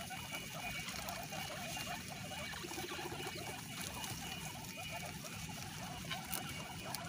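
A group of guinea pigs feeding on fresh grass: busy chewing and rustling of the grass stems, with scattered short squeaks.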